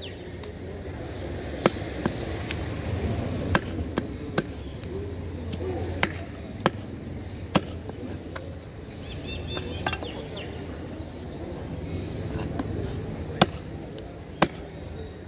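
Heavy broad-bladed knife chopping a snakehead (sola) fish on a wooden stump block: sharp, irregular chops, about ten in all, with a pause of a few seconds about two-thirds of the way through.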